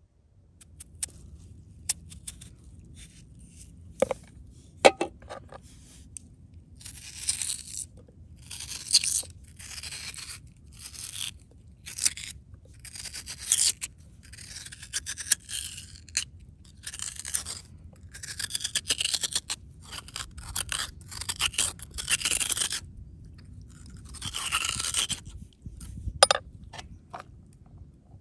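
Knife scraping out the inside of a raw peeled potato to hollow it for stuffing: a long run of short scraping strokes, each under a second, with a few sharp clicks before them.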